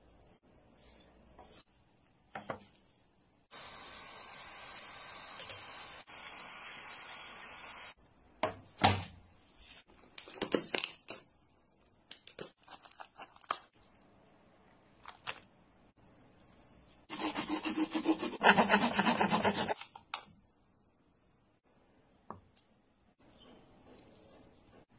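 Cooked crab being broken up by hand: sharp cracks and snaps as the shell is broken open, and tearing as the meat is pulled apart. Before this, a steady hiss runs for about four seconds, and later there is a loud rapid scraping for about three seconds.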